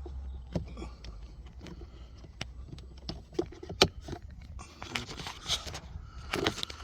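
Plastic trim pieces and retaining clips clicking, knocking and scraping as they are handled and pushed back into place, with one sharp click just under four seconds in.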